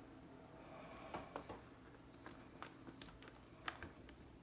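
Faint, scattered clicks and taps of hands handling a laptop.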